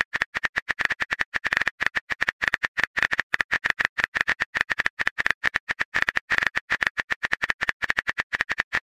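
Phone-keyboard typing sound effect: a fast, even run of short key clicks, about ten a second, as a text message is typed out.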